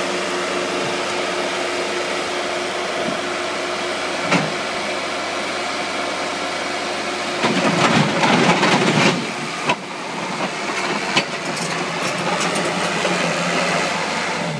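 Engine of a remote-controlled tracked crawler running steadily as it drives down loading ramps off a trailer. About halfway through it tips over the trailer's end onto the ramps, and the tracks clatter and clank loudly for a second or two, with a few single metal clunks afterwards.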